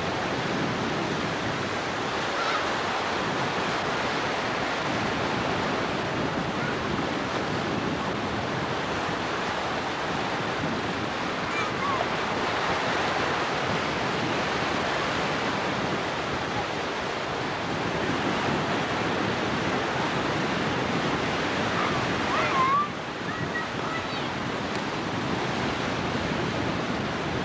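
Ocean surf breaking and washing in, a steady rushing noise, with wind blowing on the camcorder microphone.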